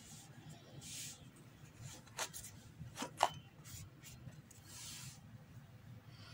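Faint brushing: a flat paintbrush swishing acrylic paint across the painted wooden box and palette, in soft strokes. A few light clicks come between two and three seconds in, the sharpest near the middle.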